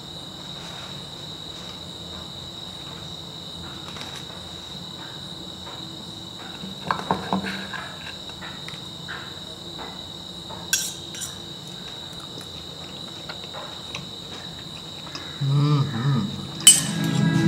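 Steady high chirping of crickets, with a few clinks and scrapes of a steel knife and fork cutting chicken in a glazed clay bowl partway through. Strummed guitar music comes in near the end and is the loudest sound.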